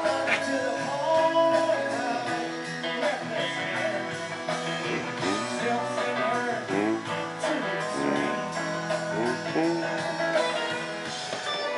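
Background music led by guitar, with sliding, bent notes.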